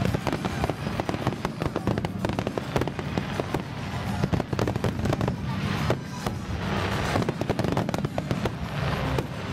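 Fireworks display going off: a rapid, continuous run of bangs with waves of crackling from bursting shells.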